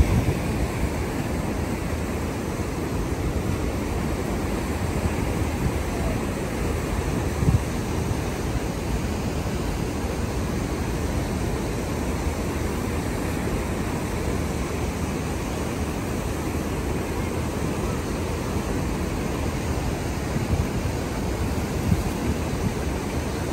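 Water from the dam outflow rushing and churning over the spillway, a steady, unbroken rush of noise.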